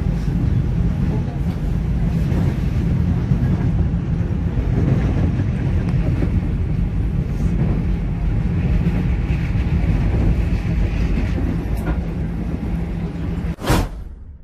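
Train crossing a bridge: a steady low rumble from the wheels and cars. Near the end there is one brief loud burst, and then the rumble fades away.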